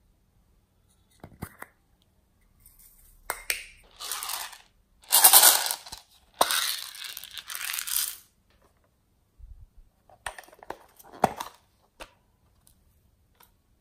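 Small dry decorations (glitter, sprinkles and plastic beads) poured from small plastic containers into a plastic bowl, in several pours of a second or two each, the loudest about five seconds in. Sharp clicks of the plastic containers being handled come before and after.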